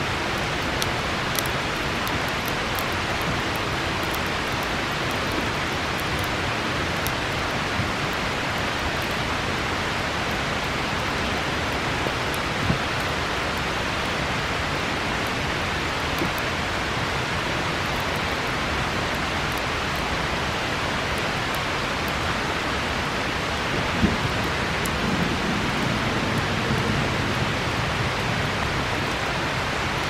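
Steady rush of a river flowing close by, covering almost everything else. Now and then a faint crackle, and twice a soft knock, from the wood bonfire.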